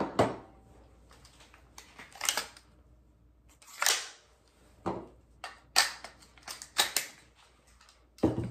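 Sharp metallic clicks and clacks from a short-barrelled AR-pattern rifle as it is handled, about seven of them spaced roughly a second apart.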